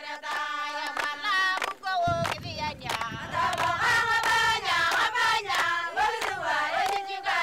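Several high voices singing together, with sharp hand claps scattered through the song.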